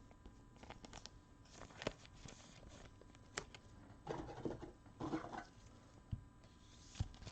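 Faint, scattered clicks and rustles of trading cards and plastic card sleeves being handled.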